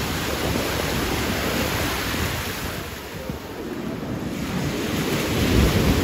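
Small waves breaking and washing up the sand in a steady surge, with wind buffeting the microphone, the low rumble swelling near the end.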